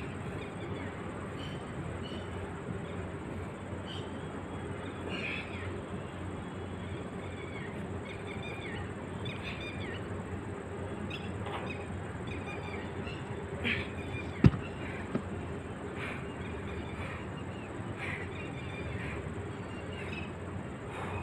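Birds chirping now and then over steady outdoor background noise. About two-thirds through comes one sharp, loud thud, with smaller knocks just before and after it: the heavy block being dropped onto the ground.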